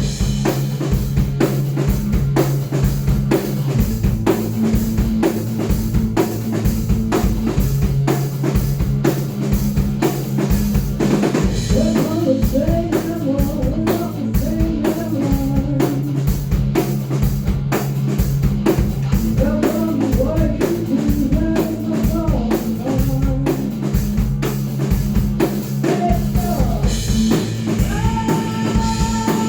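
Alternative-metal band playing: a drum kit with a steady bass drum, bass and guitar, with a sung melody from about twelve seconds in.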